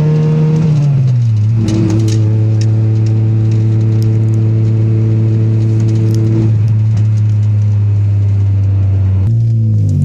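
A GSR's four-cylinder engine running at a steady idle, which settles to a lower speed about a second in and wavers up and down near the end; the engine is said to have a misfire.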